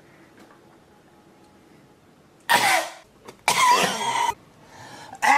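A person coughing: two loud, harsh coughs about a second apart, starting about two and a half seconds in. The second is longer and rough-voiced, and another loud sound begins right at the end.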